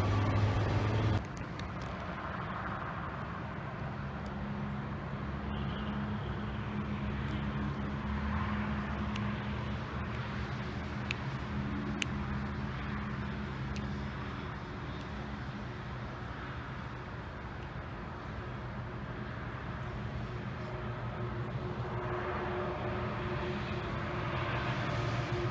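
A distant electric passenger train approaching on the main line: a steady low hum and rumble that grows slightly louder toward the end. It opens with about a second of a louder SEPTA electric multiple-unit train arriving, which cuts off abruptly.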